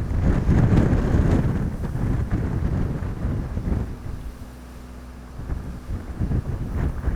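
Wind buffeting the microphone in uneven gusts, strongest in the first couple of seconds. It eases about four seconds in, when a faint steady hum shows through, then picks up again near the end.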